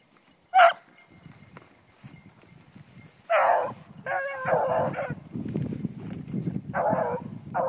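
Beagles baying. A single short yelp comes about half a second in. From about three seconds in follows a run of long, ringing bays, with a low rustling of dry brush underneath.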